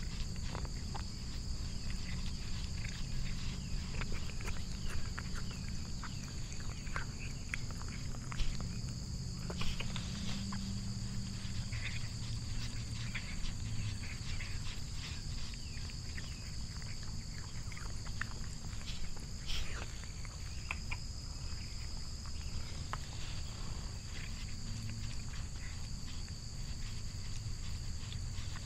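A cat licking and chewing a treat from fingertips: close, repeated wet licking clicks and smacks, over a steady low purr.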